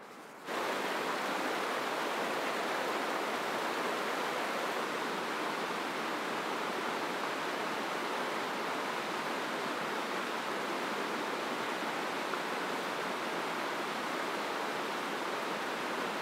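Small rocky mountain stream rushing over stones, a steady, even rush of water that starts abruptly about half a second in.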